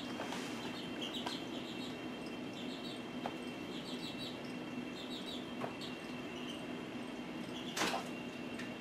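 Young chickens peeping in quick little runs of short, high chirps over a steady background hum, with one sharp knock near the end.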